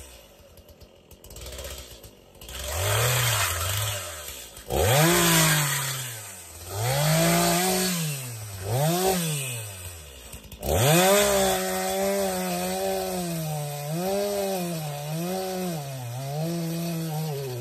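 Gas chainsaw idling, then revved up and down in several short bursts. From about eleven seconds in it runs at high speed into the trunk of a dead pine, its pitch dipping and recovering again and again under load.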